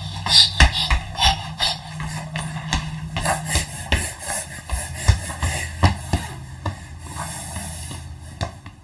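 A run of irregular knocks and taps mixed with rubbing and scraping noise, over a low steady hum through the first half.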